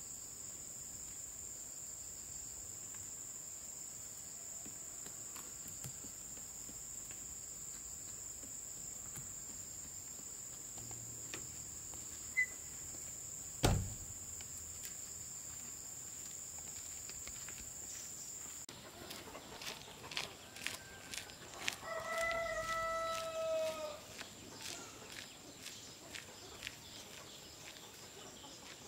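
Steady high-pitched insect drone with a single sharp knock about halfway. Then the drone drops away and a rooster crows once, amid scattered short clucks and clicks.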